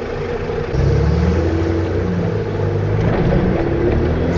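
Fiat Panda 4x4's petrol engine heard from inside the cabin, driving through flood water; about a second in the engine note gets louder as it pulls harder, then holds a steady drone.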